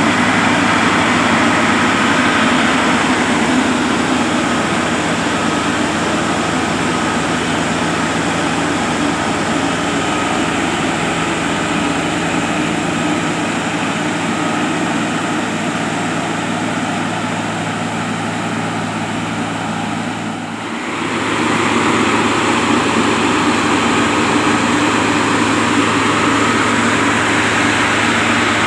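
Diesel engine of a DGS-440 dynamic track stabilizer running steadily with a deep hum. The sound dips briefly and shifts about two-thirds of the way through.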